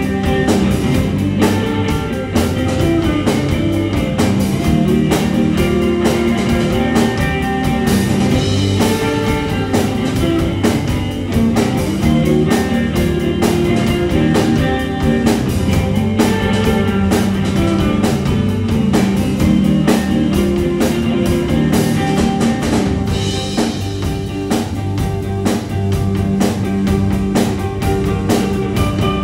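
A live rock band plays an instrumental passage: electric guitars and a baritone bass over a drum kit keeping a steady, regular beat, in a dense, continuous wall of sound.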